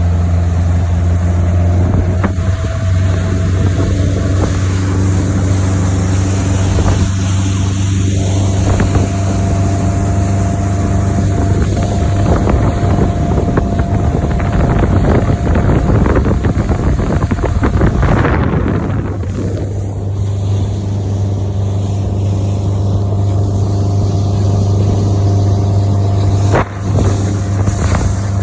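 Motorboat engine running steadily under way: a constant low drone, with wind and water noise over it. The level dips briefly a little before the end.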